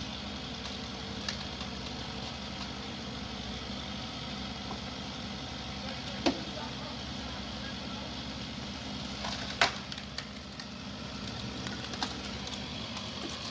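Wheeled excavator's diesel engine running steadily, with a few sharp knocks or cracks, the loudest about six and about nine and a half seconds in.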